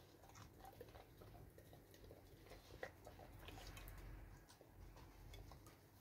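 Dog eating from a stainless steel bowl: faint, irregular small clicks of tongue and teeth on the metal, with one sharper click about three seconds in.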